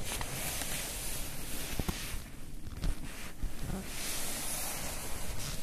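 Rustling and handling noise over a rushing hiss, with a few soft knocks, the loudest about three seconds in.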